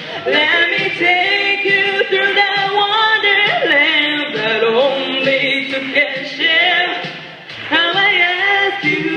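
A young woman singing a pop ballad into a handheld microphone, amplified through the hall's speakers, with long held notes that waver in vibrato and a short breath about seven seconds in.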